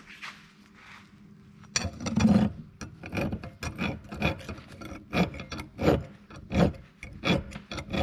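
Hand file being stroked across the steel knotter knife of an Oliver 720 square baler to sharpen its dull edge. About ten firm strokes, a little more than one a second, begin about two seconds in.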